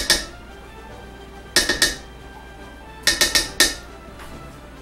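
Sharp metal clinks of a spatula and a tin can of tomato paste knocking against a stainless steel pot as the paste is scraped out. There is one tap at the start, a pair at about one and a half seconds, and a quick run of four or five just after three seconds.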